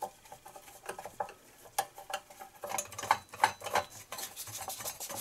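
Irregular metallic clicks, taps and scrapes of hand tools and parts as the air filter is taken off a 1970 Briggs & Stratton 2 hp engine, getting busier about halfway through.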